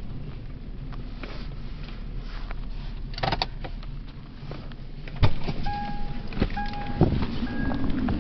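Inside a stopped car, the engine runs steadily, then there is a click and the sharp unlatching of a car door. After that the car's two-tone warning chime beeps about once a second, as the door stands open, while blizzard wind buffets the microphone more and more.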